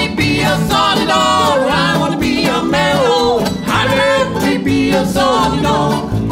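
Live acoustic bluegrass band music: upright bass, acoustic guitar and mandolin playing together, with a sung melody line over them.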